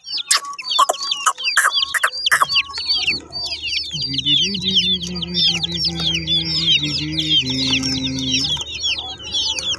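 A crowd of baby chicks peeping, a dense chorus of quick, high cheeps that each slide downward, with a few sharp clicks in the first couple of seconds.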